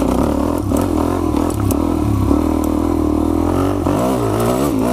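Suzuki DR-Z400E's single-cylinder four-stroke engine running steadily under way, its pitch wavering up and down near the end as the throttle changes. Occasional clicks and light clatter sound over it.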